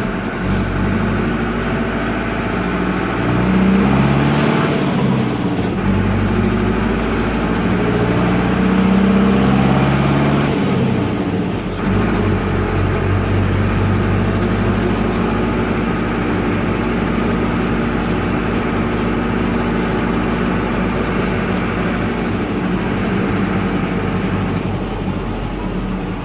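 Air-cooled Deutz F4L912 four-cylinder diesel of an Otokar M-2000 minibus running under way, heard from the cab. The engine revs climb twice in the first half with a drop between, as it pulls through the gears, then it runs steadily at cruising revs.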